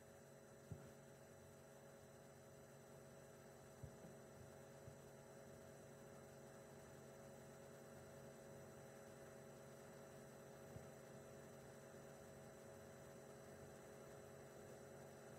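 Near silence: a faint steady electrical hum, broken by a few faint clicks.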